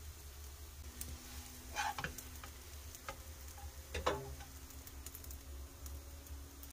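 Wooden spatula scraping and knocking against a nonstick frying pan and a ceramic plate while fried rice is scooped out, with two louder knocks about two and four seconds in. A steady low hum runs underneath.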